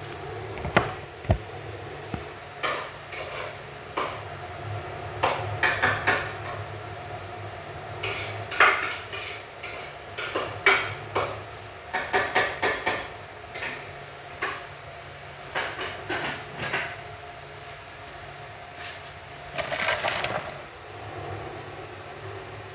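Pots, dishes and cutlery clinking and knocking as they are handled at a kitchen counter: scattered short clatters in several bunches, over a steady low hum.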